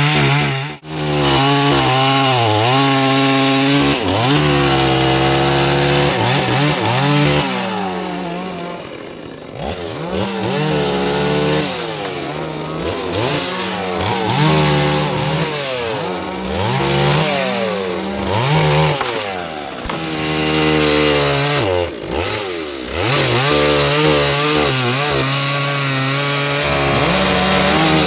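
Chainsaw engine running at high revs while cutting wood, its pitch repeatedly sagging as the chain bogs down in the cut and climbing again as the load eases.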